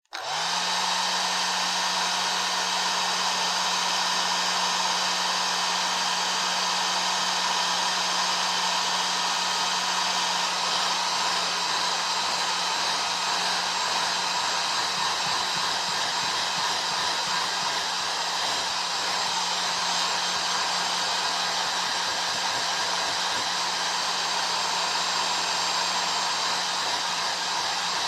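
Hair dryer running steadily: an even rush of blown air over a steady low motor hum, switching on right at the start.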